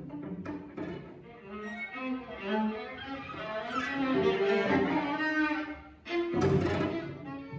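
Viola and cello improvising together, sustained bowed notes overlapping, with a sudden loud accent about six seconds in.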